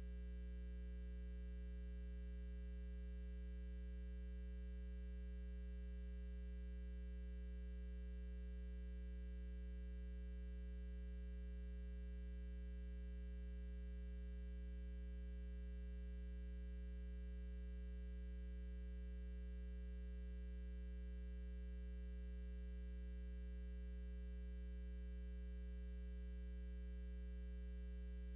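Steady electrical mains hum, a low buzz with its overtones, unchanging throughout and with nothing else heard over it.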